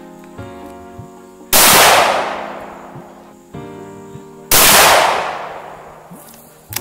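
Two rifle shots from a scoped Savage .30-06 bolt-action rifle, about three seconds apart, each a loud crack that rings out and fades over a second or so. Background music plays underneath.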